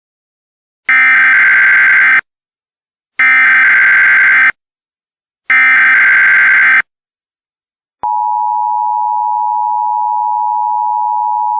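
Emergency Alert System header: three bursts of the SAME digital data code, each just over a second long with short gaps between, then the steady two-tone EAS attention signal starting about eight seconds in.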